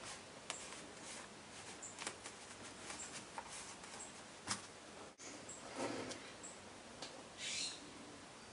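Faint handling noises: scattered soft clicks and rustles of hands pressing modelling clay around a statue's base.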